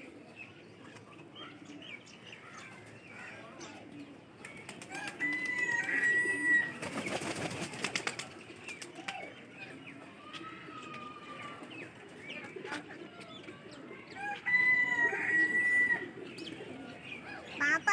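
Mixed aviary birds calling, with two long, level whistled calls, one about five seconds in and one about fifteen seconds in.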